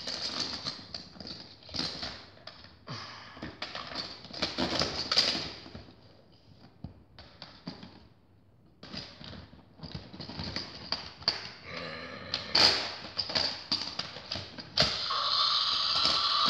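Toy dinosaur figures being handled and knocked together in a play fight: irregular bursts of scuffing and clacking, with a lull partway through. About fifteen seconds in, a steady, louder sound with a fixed pitch starts.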